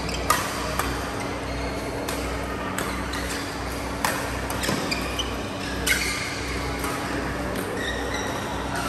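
Badminton rackets striking a shuttlecock in a doubles rally, with sharp hits about once a second through the first six seconds. A few short shoe squeaks on the court floor come over a steady hum.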